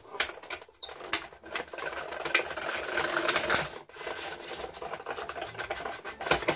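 Hand-cranked Cuttlebug die-cutting and embossing machine being turned, its crank gearing and rollers clicking and rattling quickly as the plates with flower dies and sanding cloth are pressed through. The sound stops briefly about four seconds in, then starts again as the plates are cranked back the other way.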